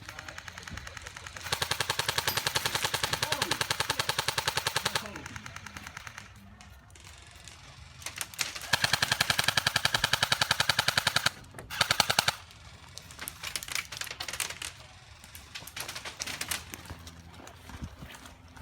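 Airsoft guns firing full-auto: a burst of rapid, evenly spaced shots about two seconds in that lasts over three seconds, another about nine seconds in lasting over two seconds, and a short burst just after. Scattered single shots follow.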